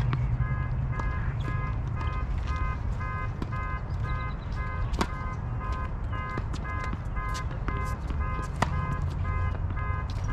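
A car alarm beeping steadily, about two beeps a second, over a low rumble of wind and traffic. A few sharp pops of tennis balls struck by rackets come through, the clearest about halfway and near the end.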